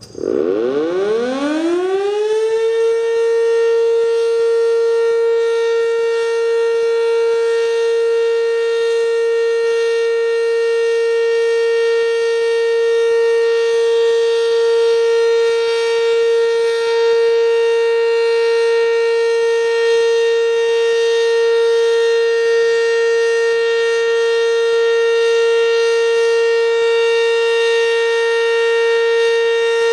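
ACA Banshee outdoor warning siren winding up from a standstill, its pitch rising over the first two or three seconds, then holding one steady tone for its weekly test.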